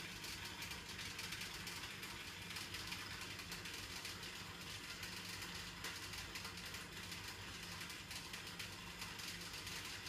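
Electrolux washing machine running with a steady low hum and a fast, continuous clicking rattle: the weird noise that points to a fault in the machine.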